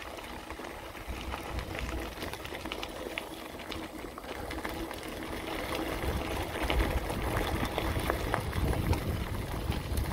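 Bicycle rolling along a gravel and dirt trail: tyres crunching over small stones, with the bike rattling and wind rumbling on the handlebar-mounted microphone. It gets louder in the second half as the low rumble grows.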